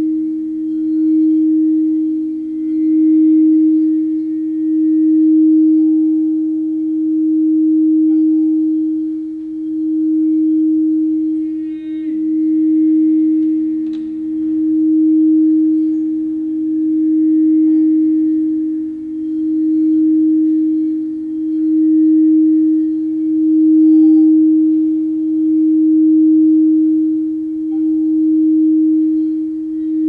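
Crystal singing bowl sung by a mallet rubbed around its rim: one steady low tone that swells and fades in slow waves about every two seconds, with a fainter second tone beneath it. A light knock about twelve seconds in.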